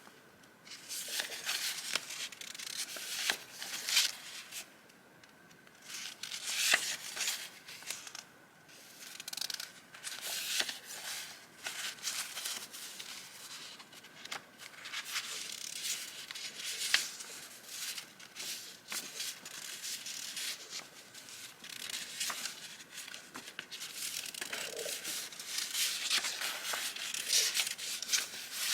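Vintage journaling papers and sticker sheets being handled close up: paper rustling, sliding and crinkling in irregular spurts, with small taps and clicks between them.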